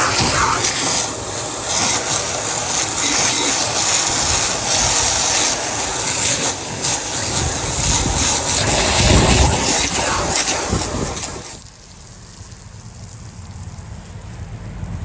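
A loud, steady rushing hiss that cuts off abruptly about eleven and a half seconds in, leaving a much fainter hiss.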